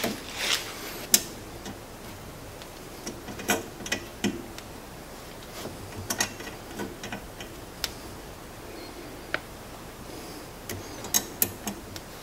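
Irregular light metallic clicks and taps of a small hex key being worked by hand in a sway bar end-link adjuster, about a dozen over the span with uneven gaps.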